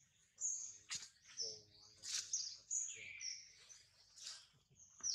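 Birds chirping: short, high calls repeating every second or so.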